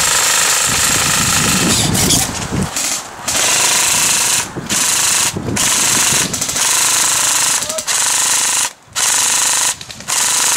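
Airsoft electric gun (AEG) firing on full auto: its gearbox rattling rapidly in several long bursts, each broken off by a brief pause.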